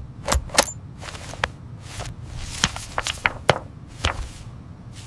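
A string of irregular light knocks and taps, about a dozen spread unevenly over five seconds, with a faint hum of room noise between them.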